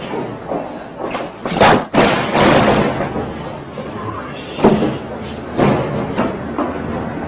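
A door banging and heavy thuds, with a man's voice, as he scrambles at a hallway door; the loudest bangs come about one and a half to three seconds in, with more near five and six seconds in.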